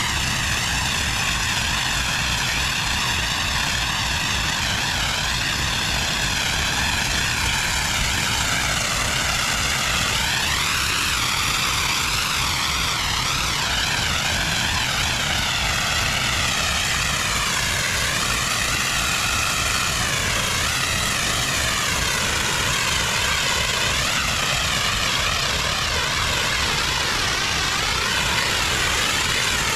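Pressure washer running steadily, its high-pressure water spray hissing against a surface, with the hiss wavering slowly in pitch.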